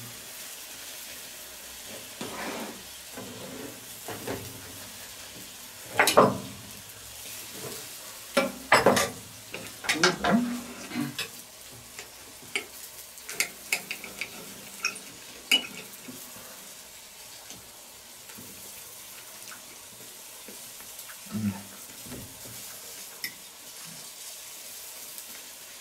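Knife and fork working on a plate as a grilled sausage is cut: scattered clicks and taps of cutlery, with a louder knock about six seconds in, over a steady background hiss.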